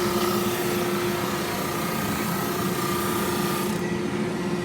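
Conveyor-fed drum sander running with a board passing under the abrasive drum: a steady machine hum with a rasping sanding hiss over it. The high hiss drops away near the end while the machine keeps running.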